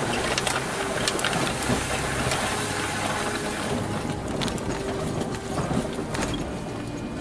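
A 4x4's engine running slowly at low revs over rough ground, with scattered sharp clicks and knocks.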